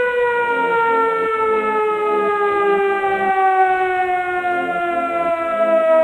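Siren sound effect in the style of a civil defence siren: one long wailing tone whose pitch falls slowly and steadily, with a faint repeating pulse underneath.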